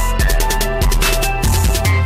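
Loud electronic dance music with a heavy, booming bass line and a driving drum beat, played through a car audio system.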